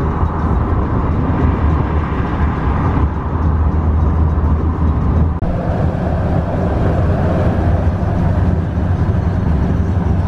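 Road and engine noise heard inside a small car's cabin at motorway speed, a loud steady drone. The sound shifts abruptly twice, about three and five seconds in.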